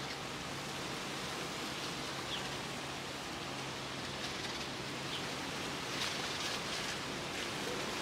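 Steady outdoor ambient hiss with a faint low hum underneath that stops near the end.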